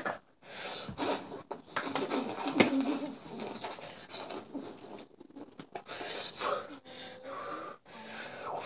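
A child's breathy huffing and hissing in irregular bursts, mixed with the rustle and swish of quick movement.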